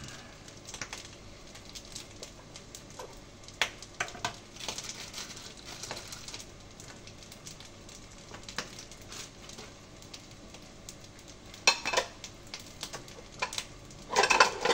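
Fried rice sizzling in a pan as it is stirred, with a utensil scraping and clicking against the pan. There are louder bursts of scraping about twelve seconds in and near the end.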